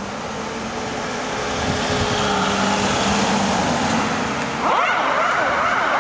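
Ambulance van driving off with its engine running. About three-quarters of the way through, its siren switches on, a quick repeating up-and-down wail.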